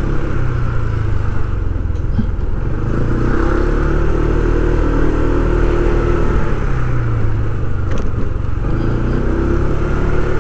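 A motor vehicle's engine running as it travels, its pitch drifting up and down, over a steady low rumble.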